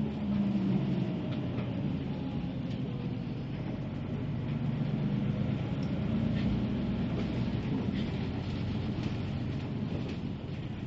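Inside a moving bus: steady engine drone and road rumble. The engine's low hum swells about a second in and again midway, then eases off.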